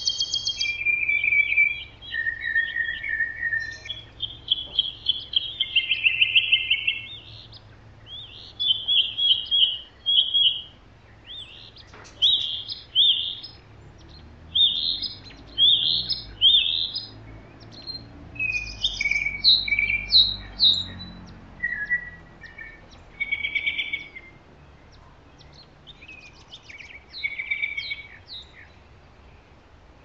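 Wild songbirds singing: a run of short, varied, clear phrases and chirps with brief pauses between them, thinning out in the last few seconds.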